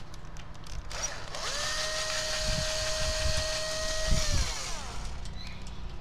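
Power drill backing out one of the screws holding the box fan's motor cover. The motor spins up about a second in, holds a steady whine with a few low knocks, then winds down.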